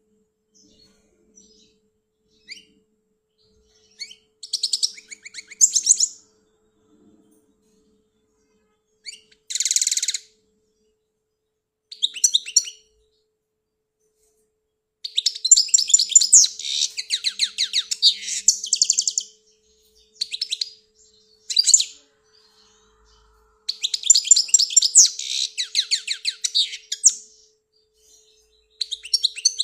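European goldfinch singing: short bursts of twittering at first, then two longer runs of fast, chattering song, one about halfway through and one a few seconds before the end.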